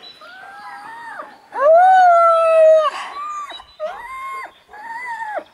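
Alaskan malamute howling in a run of about five drawn-out calls, each rising, holding and then falling away. The second call, starting about one and a half seconds in, is the longest and loudest, and the last three are shorter.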